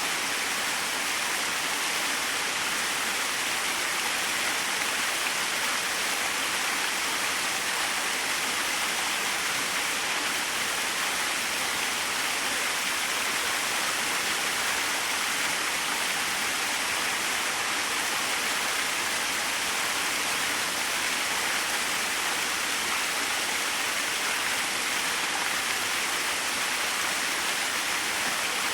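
Small waterfall splashing steadily, an even rush of falling water with no breaks.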